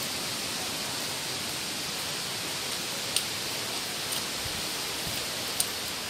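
Steady rushing roar of a waterfall, an even hiss of falling water, with a few brief faint clicks.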